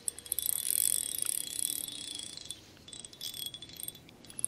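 Fishing reel being cranked to work the bait back, a fast whirring click. It eases off and stops about two and a half seconds in, with a brief turn again a little after three seconds.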